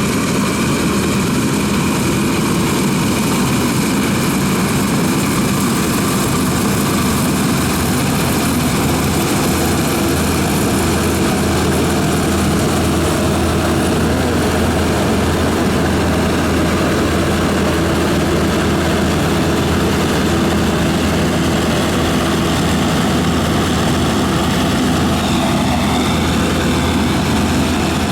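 Small Claas combine harvester running steadily while harvesting wheat: an even, unbroken engine drone.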